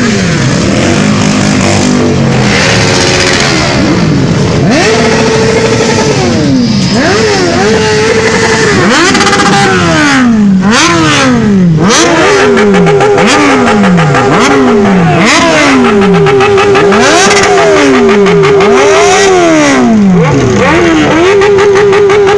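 Sport motorcycle engine revved hard while standing still: a run of quick throttle blips that rise and fall. Then, from about halfway through, it is held at high revs for a couple of seconds at a time, dropping back between holds.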